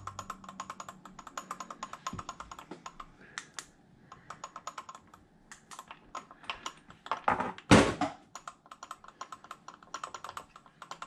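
Runs of small, rapid mechanical clicks, about ten a second, from parts and tools being worked on an RC truck's drivetrain. The runs stop and start, and there is one louder, fuller rustle about three quarters of the way through.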